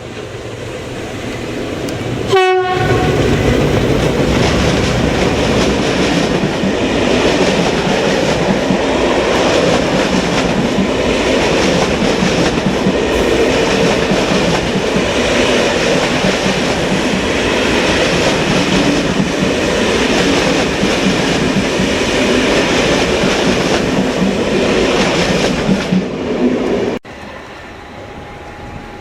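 A train passing close by: a short horn blast about two and a half seconds in, then the steady rumble and clatter of wheels on rails for over twenty seconds, which cuts off abruptly near the end.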